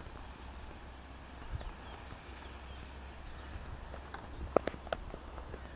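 Low, steady rumble of wind on the microphone, then a quick run of four or five sharp clicks about four and a half seconds in.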